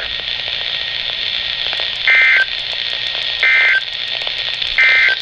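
Emergency Alert System end-of-message signal: three short bursts of warbling SAME data tones, each about a third of a second long and just over a second apart, over steady radio static. They mark the end of the weather warning broadcast.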